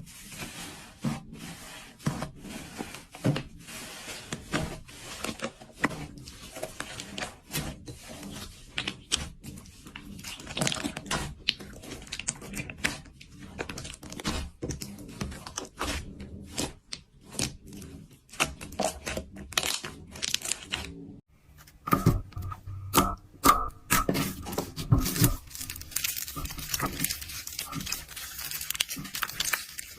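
Slime being squeezed, poked and stretched by hand, giving a dense run of sticky clicks, pops and crackles. It breaks off briefly about two thirds of the way through, then comes back with a crisper, denser crackle.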